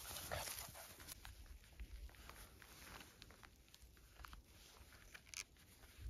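Dogs play-wrestling in dry grass: faint rustling with a few short growl-like noises near the start, then quieter scattered rustles and small clicks.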